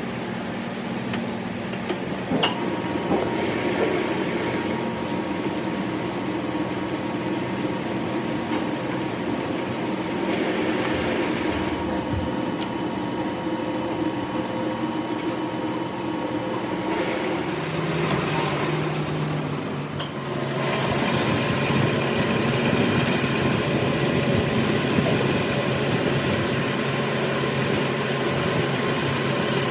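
Workshop machine motor running steadily with a humming whine. The hum drops in pitch about 18 seconds in and grows louder and noisier from about 20 seconds.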